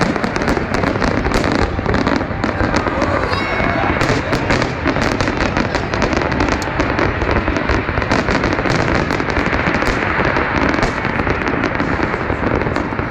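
Fireworks display: a dense, continuous barrage of cracking and popping bursts, with a brief high whistle about three and a half seconds in.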